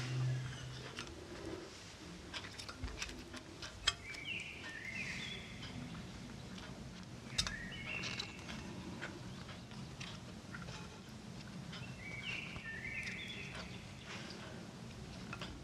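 Savoy cabbage leaves being laid and pressed into an oiled non-stick frying pan: soft rustling and handling, with two sharp taps about four and seven seconds in. A bird chirps in the background in three short bursts.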